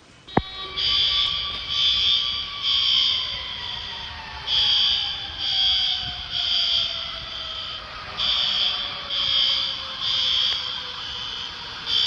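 A fire alarm sounding in the temporal-three pattern: three high beeps, then a pause, repeating. A fainter tone slides slowly down in pitch underneath, and a sharp click comes just before the beeping begins.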